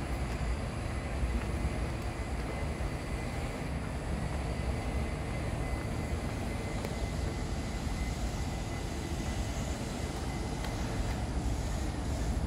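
Steady low rumble of outdoor background noise, with a faint thin high tone through the middle.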